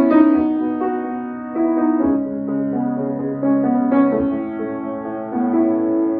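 Background music: slow, gentle piano with sustained chords changing every second or so.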